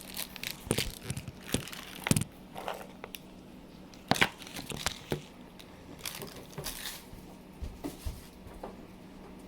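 Plastic food packaging being handled: crinkling and rustling in short spells, with scattered light clicks and taps, the sharpest a little past two seconds in and again around four seconds in.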